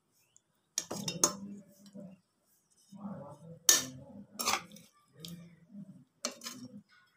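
A metal spoon clinking and scraping against a rice cooker's metal inner pot as chicken curry pieces are spooned onto a layer of rice. About five sharp clinks come at irregular moments, with duller sounds of food being moved between them.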